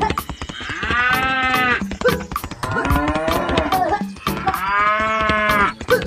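Cattle mooing twice, each moo lasting about a second, over a steady beat of sharp clicks.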